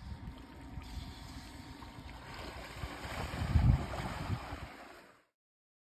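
An elephant splashing and sloshing in pond water, with wind rumbling on the microphone. The loudest rush comes about three and a half seconds in, and the sound cuts off suddenly about five seconds in.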